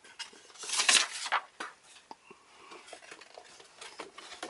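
Cardboard box packaging handled by hand: a louder scraping rustle about a second in, then light taps and soft rustles of cardboard and plastic.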